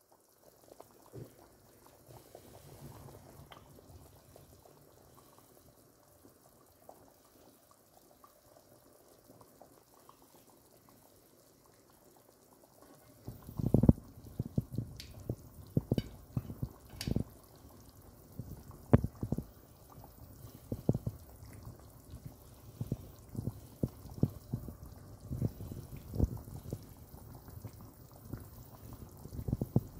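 Thick tomato sauce with chicken wings simmering in a frying pan, bubbling with irregular plops and pops. It is faint at first and becomes much louder and busier about halfway through.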